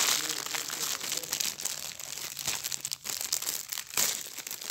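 Plastic bag of LEGO pieces crinkling as it is handled and pulled open, with dense crackles that are loudest near the start and about four seconds in.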